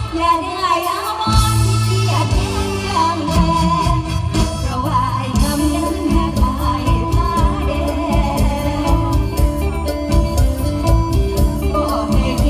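Live mor lam band music with singing over a steady drum beat and bass.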